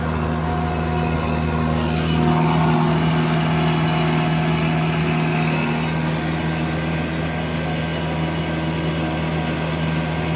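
Engine of a ride-on 24-inch rock saw trencher running steadily at working speed while the saw cuts a trench. About two seconds in, the sound grows louder and rougher, then eases again after about six seconds.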